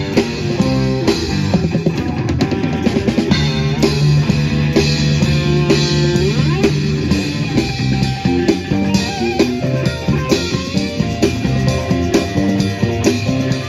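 Live rock band playing, with electric guitars over a steady drum kit beat.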